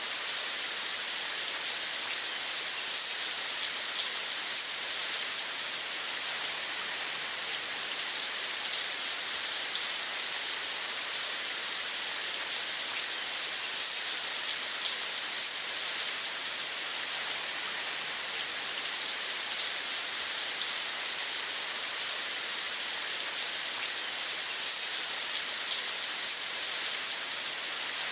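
Steady rain falling, a continuous even hiss of many fine drops pattering on a surface, with no change in intensity.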